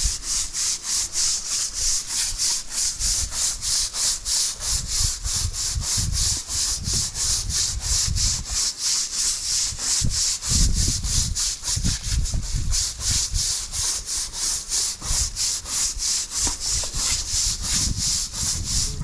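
High-pressure water jet from a spray lance hissing against a clinker brick wall as the bricks are washed clean. The hiss pulses about three times a second, under an uneven low rumble.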